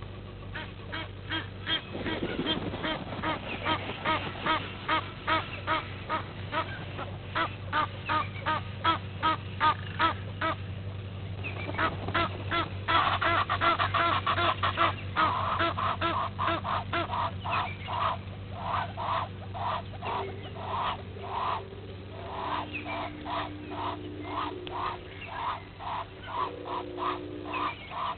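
Egyptian geese honking in a long rapid series, about two to three harsh calls a second, loudest a little under halfway through.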